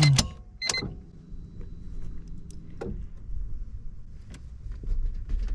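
Car ignition switched to on: a few sharp clicks and a short high beep near the start, then a faint steady hum and scattered light clicks.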